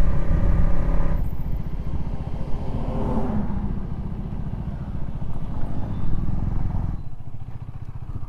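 KTM Duke motorcycle's single-cylinder engine running as the bike slows and rolls in, its low exhaust pulsing getting quieter and dropping away about seven seconds in.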